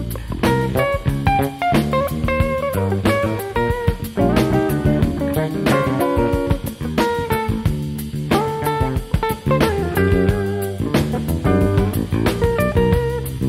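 Jazz-funk trio playing: an electric guitar plays quick lines over electric bass and a drum kit keeping a steady beat.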